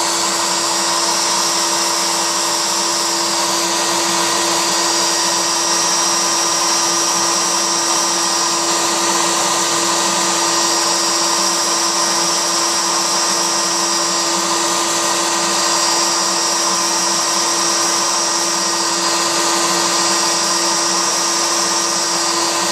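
A wood router spindle on a CNC router table runs with a steady high whine while its bit carves the workpiece. A dust collector runs underneath. The high cutting hiss slowly swells and eases every several seconds.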